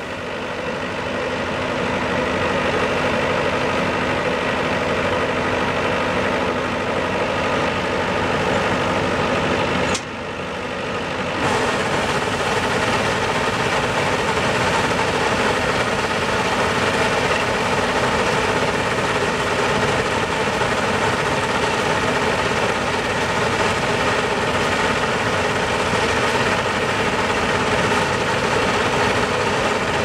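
Small tracked rice combine harvester running steadily, its engine and threshing machinery holding an even, constant pitch as it unloads grain. About ten seconds in the sound dips briefly and the highest part drops out for a second or so, then carries on unchanged.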